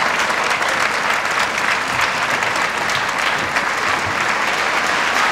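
Theatre audience applauding steadily, the dense clatter of many hands clapping at an even level.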